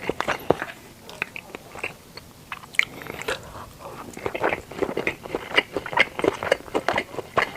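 A person chewing sushi close to the microphone, with irregular wet mouth clicks; the chewing thins out from about a second in and picks up again about four seconds in.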